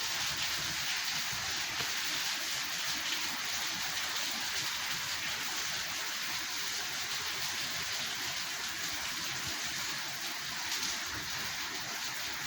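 Steady rain falling, an even hiss of many drops that holds constant throughout.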